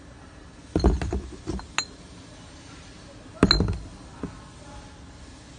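Empty amber glass bottles being handled in a cardboard box: dull knocks as they are set down and sharp ringing glass clinks as they touch. The sounds come in two clusters, about a second in and about three and a half seconds in.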